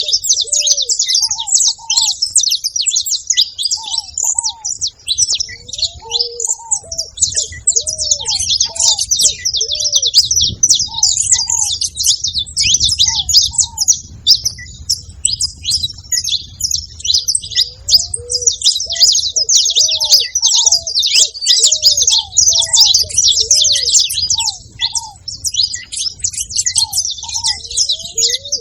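Saffron finches chirping and singing in a dense, continuous stream of high notes. Under them runs a ruddy ground dove's soft cooing in short, repeated low notes.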